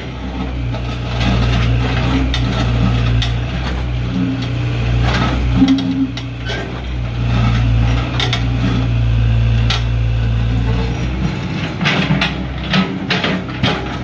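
Caterpillar backhoe loader's diesel engine running steadily while the rear digging arm works a trench in the road, with repeated sharp clanks and knocks from the bucket and arm, coming more often near the end.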